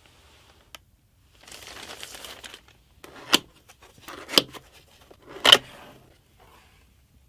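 Keyboard packaging being handled: a stretch of crinkling plastic, then three sharp knocks about a second apart.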